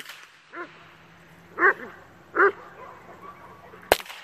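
A dog giving three short, high barks about a second apart, with two sharp cracks, one right at the start and one near the end.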